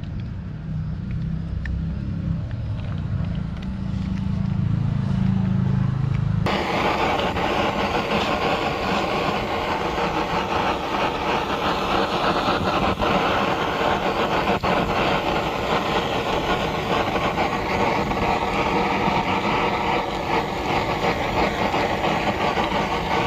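Handheld gas blowtorch on a canister, lit about six seconds in and held on: a loud, steady rushing hiss of flame that cuts off sharply at the end. Before it, only a low hum.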